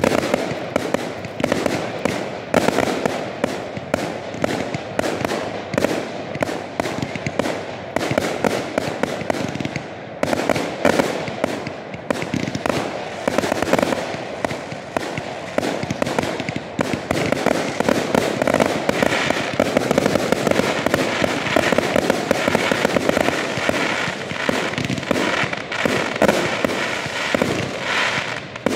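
A 134-shot 25 mm 'Proud Mary' firework cake firing in a rapid, almost unbroken run of shots, the tubes launching shells that burst overhead.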